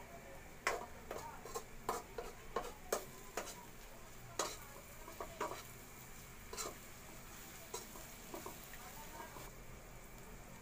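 Metal spatula scraping and clinking against an aluminium wok while sautéed bitter melon and egg is stirred. The scrapes come irregularly, thick in the first half and sparser toward the end.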